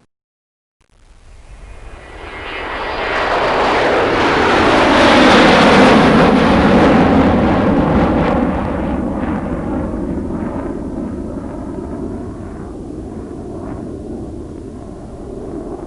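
An airplane flying past overhead. After a short silence its engine noise swells to its loudest about five seconds in, then slowly fades away.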